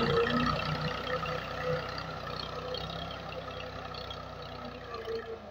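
Massey Ferguson 240 tractor's three-cylinder diesel engine running steadily as it works the soil with its front blade, slowly growing fainter.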